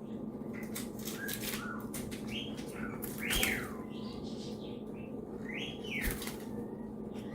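Pet birds chirping, with two louder arched calls about three and six seconds in, and brief fluttering of wings.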